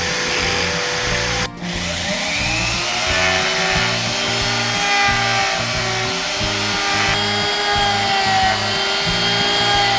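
A spinning polishing wheel rubs against an antique revolver cylinder. About a second and a half in, after a brief break, a handheld rotary tool takes over, whining as its small disc and bit grind and polish the cylinder's flutes, its pitch drifting as the load changes.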